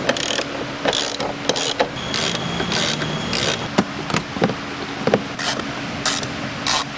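Socket ratchet wrench undoing fairing bolts on a scooter, clicking in short runs about every half second, with a few sharp clicks of screws and fasteners between them.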